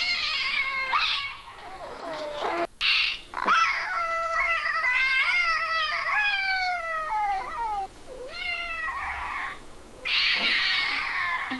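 Cat yowling: several drawn-out, wavering cries that slide down in pitch, the longest lasting about four seconds.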